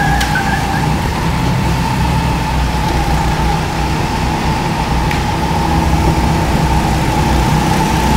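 Go-kart running on the track, a steady whine held at one pitch over a low rumble; a short high squeal fades out in the first second.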